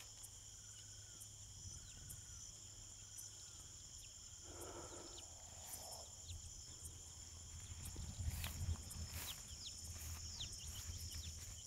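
Chorus of frogs and insects: steady high-pitched trilling with many short chirps and calls over it. A low rumble of handling noise swells about two-thirds of the way in.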